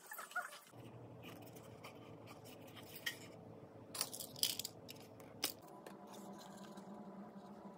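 A few light clicks and scrapes of wooden popsicle-stick craft pieces being handled on a wooden table, over a faint steady hum.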